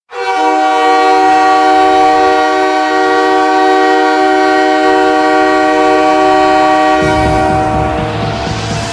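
Nathan Airchime K3 train horn used as a hockey goal horn, blasting one long, steady multi-note chord. About seven seconds in, the goal song comes in with a heavy beat as the horn fades.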